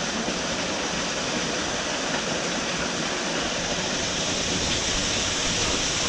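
Small waterfall splashing down between rocks: a steady rush of falling water.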